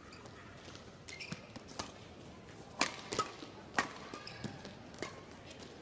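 Badminton rally: sharp taps of rackets hitting the shuttlecock and players' shoes on the court, a handful of hits a fraction of a second to a second apart, over faint arena noise.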